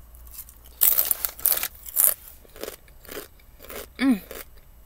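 Crisp jalapeño chips being bitten and chewed, with a run of loud, sharp crunches about a second in, then softer chewing crunches. There is a brief hummed 'mm' from the eater near the end.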